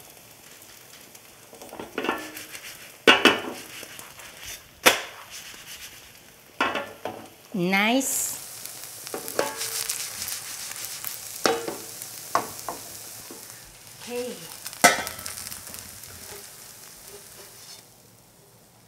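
Kimchi pancake (kimchijeon) sizzling in oil in a frying pan, with scattered sharp crunchy crackles; the crunchy sound means the pancake is fried very crunchy. The sizzle fades near the end.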